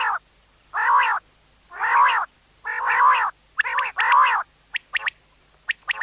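Common quail calling: a run of harsh, arched notes of about half a second each, roughly one a second, two coming close together about four seconds in. Near the end they give way to a few short, sharp pips.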